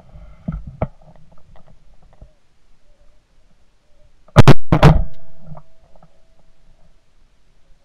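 Shotgun fired twice in quick succession about four and a half seconds in, two very loud reports less than half a second apart, each followed by a short fading tail.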